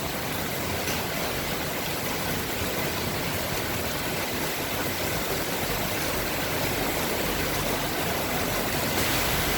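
Strong wind blowing hard, a steady, even rushing noise with no pauses.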